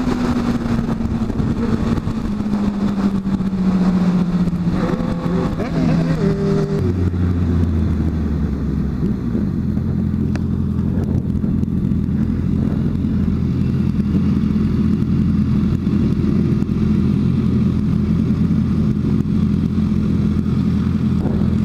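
Honda CB650F inline-four motorcycle engine heard from the bike itself: the engine note falls steadily as the bike slows over the first several seconds, then holds a steady low note for the rest.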